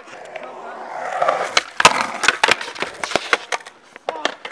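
Skateboard wheels rolling on concrete, then a run of sharp clacks and slaps over about two seconds as the board hits the ground and clatters away in a bail, with the loudest crack about two seconds in.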